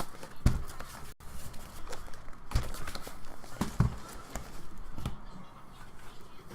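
Hands opening a sealed trading card hobby box: rustling with several dull knocks of the cardboard box being handled.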